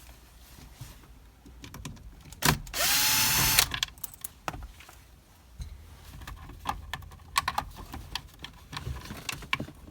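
Power drill spinning up briefly about three seconds in, driving out the Torx 25 screw beneath the steering column's clock spring, followed by scattered clicks and knocks of tool and plastic handling.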